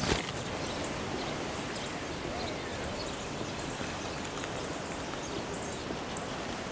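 Steady outdoor background noise, an even hiss like wind or moving water, with a few faint, short, high-pitched chirps now and then.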